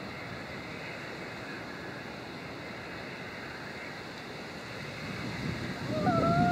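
Steam locomotive approaching in the distance: a steady rumble under wind on the microphone, growing louder over the last second or so.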